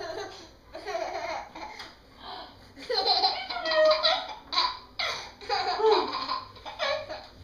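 A toddler laughing in repeated short bursts.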